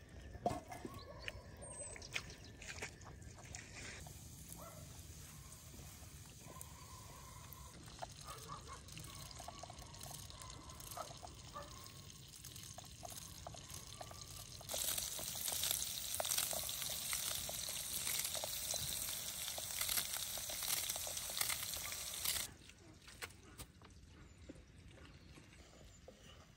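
Wood fire crackling under a pan on a cast-iron brazier. About halfway through, a loud, steady sizzle from the hot pan for some seven seconds, then it cuts off suddenly.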